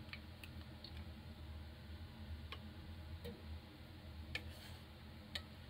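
A handful of faint, sharp clicks and light taps at irregular intervals over a low steady hum, one click about four seconds in followed by a brief hiss.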